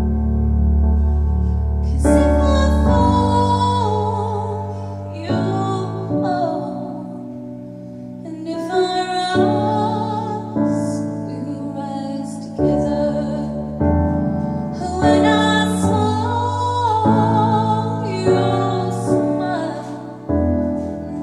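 A woman singing a slow ballad into a microphone over piano accompaniment, her held notes wavering with vibrato. The piano plays alone for the first two seconds or so before her voice comes in, then she sings in phrases.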